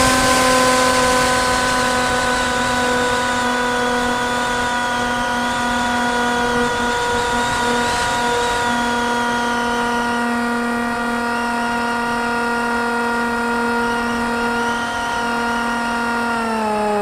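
Radio-controlled flying-wing plane's motor and propeller, heard from the plane's own camera, running at steady high throttle: a steady whine over a hiss of rushing air, its pitch starting to fall right at the end as the throttle comes back.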